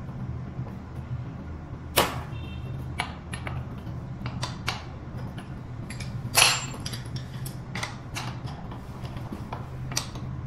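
Metal hand tools clicking and clinking on the front axle bolts of an electric scooter as a socket wrench and a T-handle hex key are worked, in irregular small clicks with two sharper ringing clinks, about two seconds in and just past six seconds. A steady low hum runs underneath.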